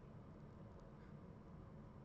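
Near silence: a steady low background hum, with a faint tick or two a little under a second in.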